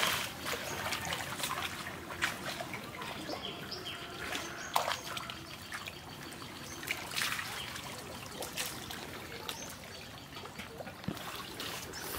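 Water trickling and dripping, with scattered small splashes.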